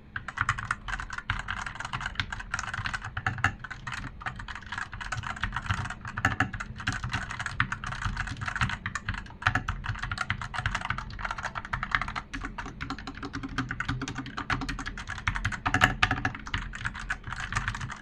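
Fantech Maxfit61 (MK-857) 60% mechanical keyboard with Outemu Red linear switches being typed on quickly and continuously, making a dense stream of keystroke clacks.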